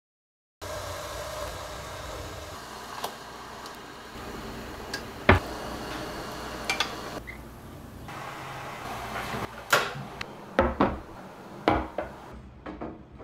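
Kitchen clatter: a ladle, pot and plates knock and clink a few times over a steady low background noise, with the busiest run of knocks near the end. The sound starts after a brief moment of silence.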